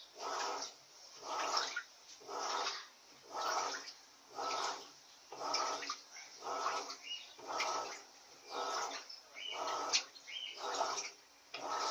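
Electrolux Silent Control 16 kg (LAC 16) top-load washing machine agitating a duvet load in water: a rhythmic swish-and-slosh, about one stroke a second, as the agitator turns back and forth.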